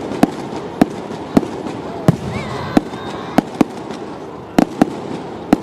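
Fireworks display: sharp bangs of bursting fireworks, about ten at irregular intervals, some in quick pairs, over a steady background noise.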